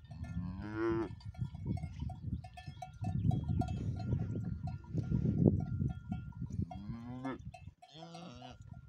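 Cattle mooing three times, each call rising in pitch: once about a second in, then twice near the end. Collar bells tinkle faintly throughout, over a low rumbling noise that is loudest around the middle.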